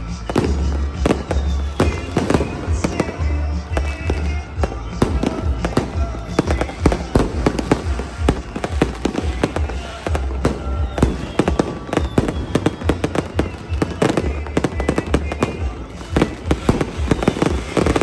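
Fireworks going off in quick succession, many sharp bangs and crackles a second with no pause, over a low rumble.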